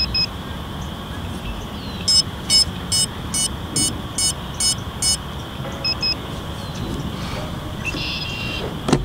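Short electronic beeps from FPV drone gear being powered up for a flight: a quick pair, then a run of eight evenly spaced beeps at about two a second, and another quick pair, over a steady background hiss.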